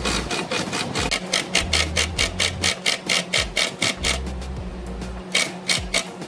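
A hand tool scraping wood in quick back-and-forth strokes, about six a second, like rasping or sanding by hand. The strokes stop about four seconds in, then a few more come near the end.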